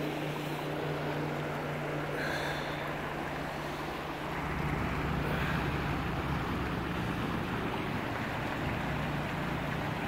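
Small mountain stream running steadily over rocks, a continuous rush of water that swells slightly about halfway through.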